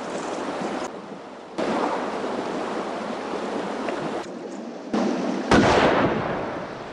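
A steady rushing noise that breaks off abruptly twice. About five and a half seconds in comes a sharp rifle shot, the loudest sound, echoing and dying away over about a second.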